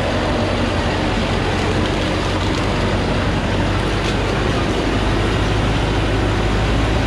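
Thaco Forland truck's diesel engine running steadily under load as the truck crawls slowly up a steep rocky track.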